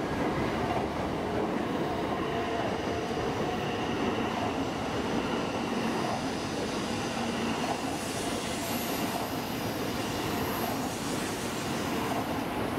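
E2 series Shinkansen trainset pulling slowly out past the platform end on departure: a steady rolling noise from the passing cars. Thin high tones sit over it, with a very high one around nine to ten seconds in.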